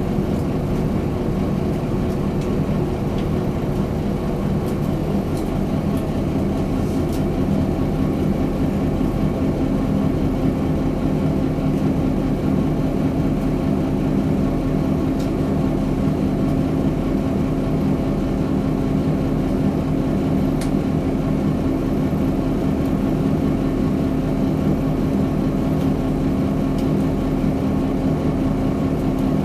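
Mitsubishi Fuso Aero Midi MK bus's 6M61 six-cylinder diesel engine idling steadily while the bus stands still, heard from inside the cabin.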